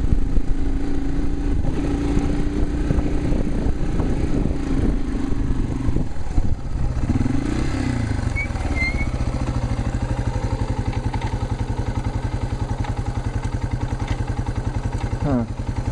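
Yamaha TW200's single-cylinder four-stroke engine running while riding, then settling to a steady, even idle about halfway through as the bike stops.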